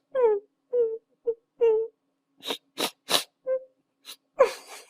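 A person crying in sobs: a run of short cries that fall in pitch, broken about halfway through by several sharp, gasping breaths, with a longer falling cry near the end.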